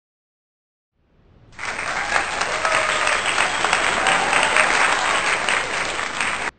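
An audience applauding: silence for about a second, then a quick swell into dense, steady clapping that cuts off suddenly near the end.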